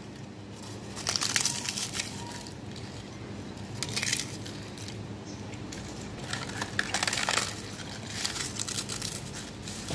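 Crisp fried papad crunching and crackling as it is broken up by hand, in irregular crunches that are loudest a little after a second in and again around seven seconds in.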